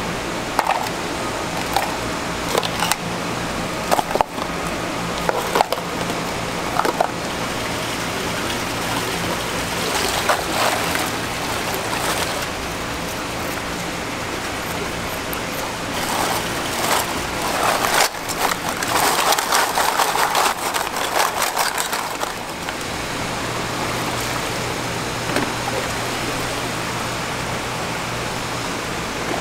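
Steady hum and running water of seafood holding tanks, with scattered clicks and knocks as shellfish and a knife are handled. The clatter is busiest for several seconds past the middle.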